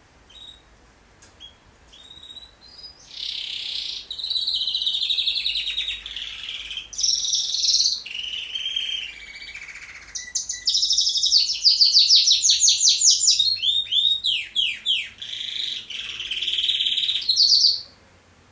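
A pet songbird singing a long song: a few soft chirps, then warbling phrases and rapid trills, with a run of quick downward-sweeping notes about two-thirds of the way through, stopping just before the end.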